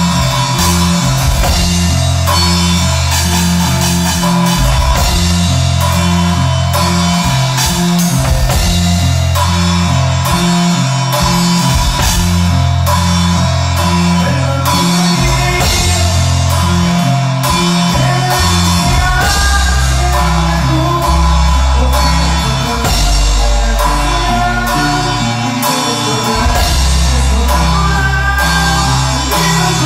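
A conjunto band playing: a drum beat and a bass line that changes note in a steady rhythm, with a melody above.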